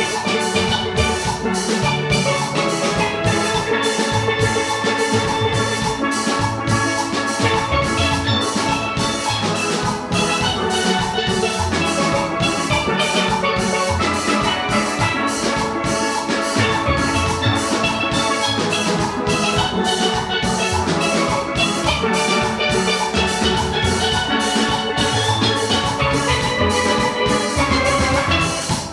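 A steel orchestra playing: many steelpans sounding rapid pitched notes in harmony over a drum kit keeping a steady beat.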